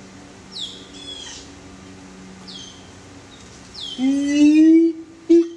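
Siamang calling: a loud, slightly rising hoot held about a second, starting about four seconds in, then a short second hoot near the end. Small birds give quick descending chirps before it, over a faint low hum.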